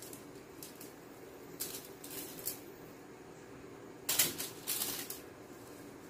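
Aluminium foil crinkling as hands turn and rub seasoning into whole raw lionfish on a foil-lined tray: a few short rustling bursts, the loudest pair about four to five seconds in.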